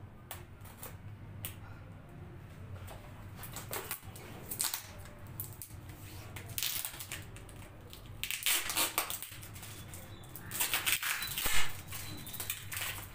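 Clear packing tape being peeled and pulled off a wrapped parcel in irregular crackling rips, busier in the second half and loudest near the end.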